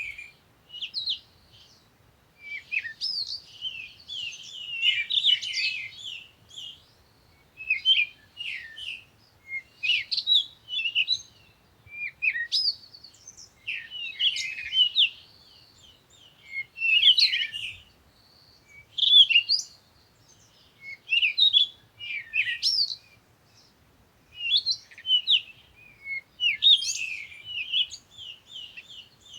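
Small songbirds chirping and twittering in quick high bursts every second or two, several calls overlapping.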